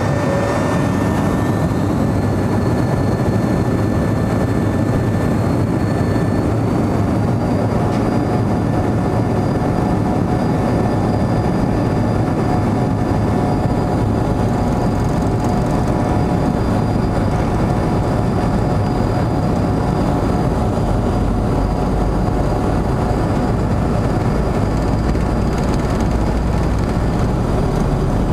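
Avro RJ85's Honeywell LF507 turbofan engines heard from inside the cabin beside the engine during the take-off roll: a thin whine rises in pitch in the first seconds as they spool up to take-off thrust, then holds steady over the engine noise. A low rumble from the wheels on the runway grows stronger about twenty seconds in as speed builds.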